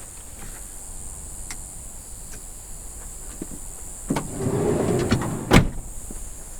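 A door slides along for about a second, then shuts with one sharp bang.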